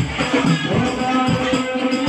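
Men's voices singing through microphones over frame drums and a goblet-shaped hand drum beating a steady rhythm, with a jingling rattle in it.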